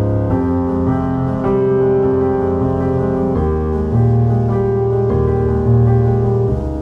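Background music: slow piano-led music with sustained chords that change every second or so.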